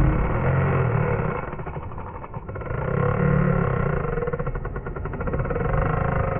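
Large lever-drag saltwater trolling reel being cranked fast, its gears giving a rapid even ticking whir, over a steady low rumble.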